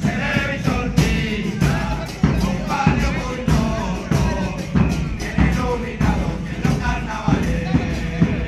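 Murga porteña music: bass drums and cymbals beating hard under melodic voices or instruments.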